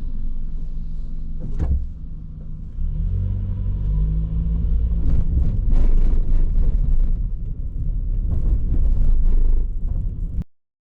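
A car's engine and road rumble recorded from inside the cabin by a dashcam, with the engine note rising about three seconds in as the car speeds up, and several sharp knocks and rattles in the second half. The sound cuts off suddenly near the end.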